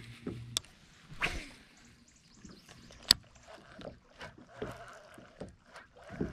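Small water sounds and scattered knocks and clicks against a plastic kayak's hull and fishing gear, with one sharp click about three seconds in.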